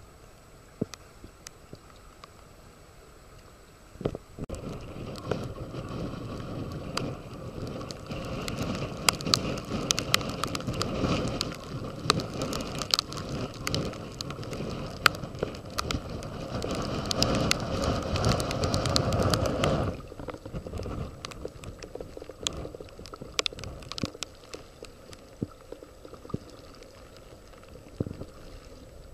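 Rain, with drops ticking sharply on the microphone. From about four seconds in, a much louder rushing noise with a low rumble cuts in and stops suddenly about twenty seconds in.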